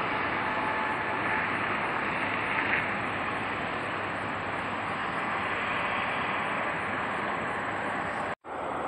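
Boeing 767-300ER jetliner's twin turbofan engines giving a steady rushing noise as it flares, touches down and rolls out on the runway. The sound cuts off abruptly near the end.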